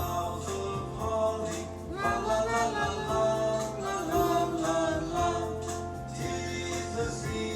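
Christmas carol music: singing with a choir-like sound over a steady accompaniment, with jingle bells.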